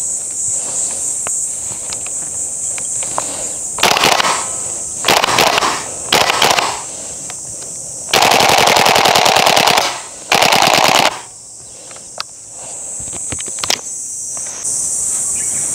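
KSC TAR-21 gas blowback airsoft rifle firing on full auto: several short rapid bursts, a long burst of about two seconds near the middle and another short one after it, with a few single shots between.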